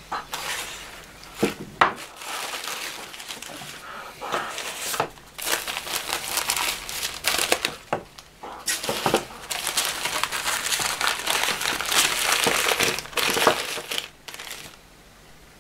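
Sheets of grey packing paper rustling and crinkling as they are handled and unfolded, with a few sharper snaps in the first couple of seconds.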